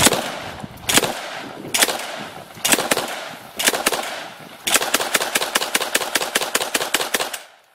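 AA-12 fully automatic 12-gauge shotgun firing: five single shots about a second apart, controlled by the trigger, then a rapid automatic burst of about two and a half seconds that stops abruptly near the end.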